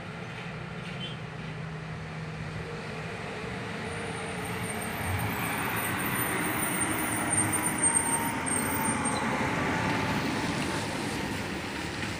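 Diesel engine of a government bus running as it rounds a hairpin bend and approaches, growing louder over several seconds as it passes close by, then easing slightly.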